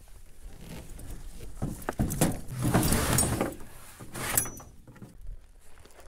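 Handling noise from a paramotor being loaded into a pickup truck bed: the seat harness and frame rustle and scrape against the bed liner, with several knocks between about two and three and a half seconds in. A short metallic clink comes a little over four seconds in.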